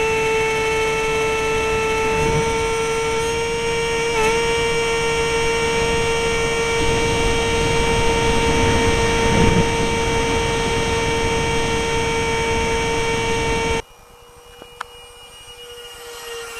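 Twin 55 mm electric ducted fans on an RC model plane whining, heard up close from on board: a steady high whine with wind rushing past, dipping briefly about four seconds in. Near the end it cuts to a much quieter, distant whine of the plane flying overhead, swelling slightly.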